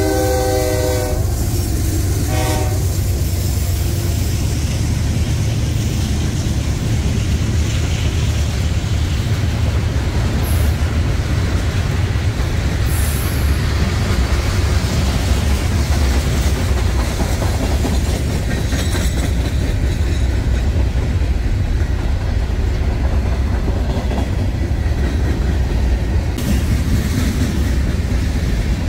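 A freight train passing close by. The locomotive's multi-note horn chord cuts off about a second in. Then a locomotive and a long string of tank cars, boxcars and covered hoppers roll past, with a steady rumble and the clatter of wheels on the rails.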